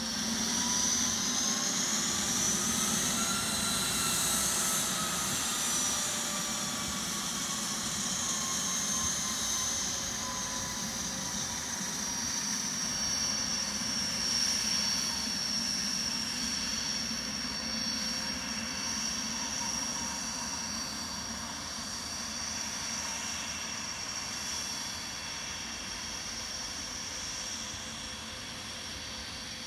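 Dassault Falcon 900EX business jet taxiing, its three Honeywell TFE731 turbofans whining at taxi power. The high turbine whine rises in pitch over the first few seconds, eases back down and then holds steady, growing slowly fainter as the jet moves away.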